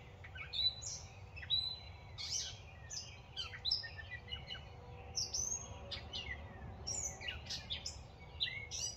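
Dawn chorus of several songbirds singing and calling at once, quick chirps and whistled notes overlapping without a break.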